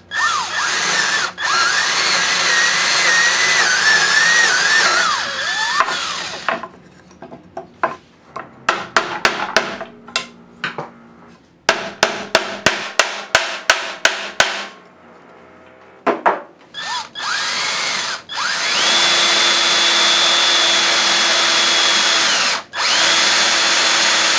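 Cordless drill boring into plywood, running steadily with a motor whine for about six seconds. Then two runs of sharp hammer taps, about three a second, as a T-nut is driven into the drilled hole, and then the drill runs again into wood, stopping briefly twice.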